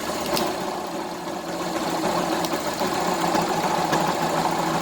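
Yamaha Fazer 150 single-cylinder engine idling with its abnormal noise, which sounds much like a broken bearing but comes from the shorted, burnt stator's magnetic field. There is a sharp click shortly after the start, and the running noise grows a little louder about a second and a half in.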